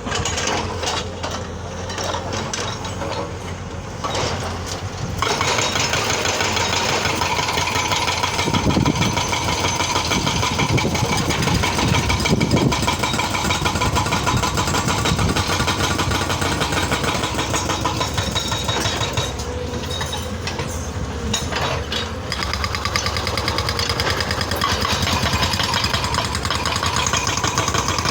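Excavator's diesel engine running steadily, getting louder about five seconds in and easing off for a few seconds around the twenty-second mark before rising again.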